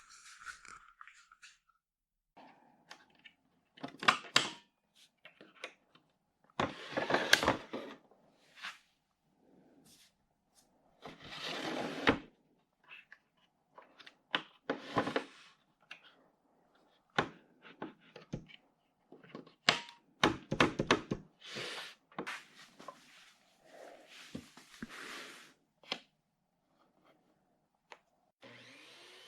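Woodworking shop handling sounds: scattered knocks and clunks of tools and wood being set down and moved, with short scraping or sliding noises about a second long. Near the end a small motor starts and spins up to a steady hum.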